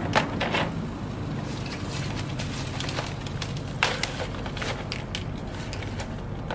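Plant stems, roots and a plastic pot rustling and crackling as the plants are pushed into the pot by hand, with a few light knocks, over a steady low hum.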